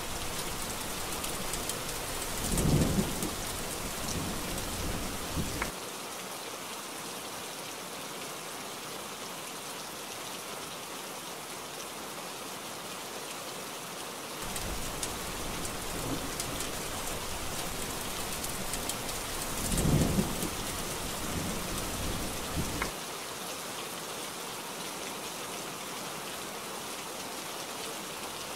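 Steady heavy rain with two rolls of thunder, the louder peaks about three seconds in and about twenty seconds in; each time the low rumble underneath drops away suddenly a few seconds after the peak, leaving the rain alone.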